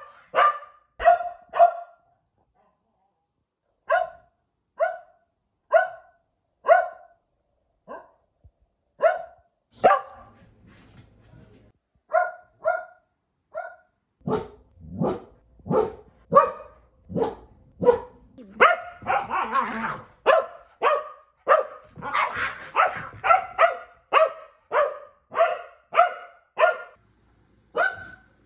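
A Keeshond barking over and over: short, sharp barks, at first spaced a second or more apart with a pause of about two seconds early on, then coming faster from about halfway through, some running together.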